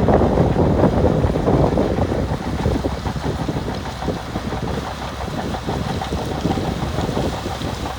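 Diesel engine of heavy earthmoving machinery working: a continuous rumble with an irregular rattle in it, a little louder in the first couple of seconds.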